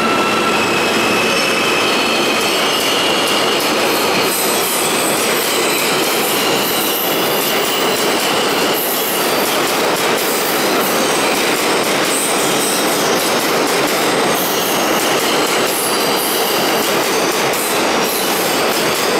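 A New York City subway R160 train running out of the station into the tunnel. Its steel wheels make a steady rumbling clatter on the rails, with high-pitched wheel squeal coming and going over it.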